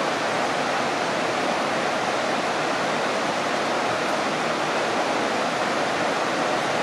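Waterfall: river water pouring over a rock ledge into churning whitewater, a steady, unbroken rushing.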